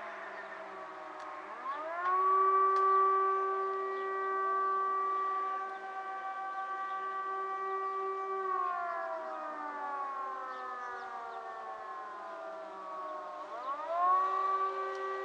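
Civil alert siren on a test run, wailing: its pitch rises quickly, holds steady for several seconds, slides slowly down, then rises quickly again and holds near the end.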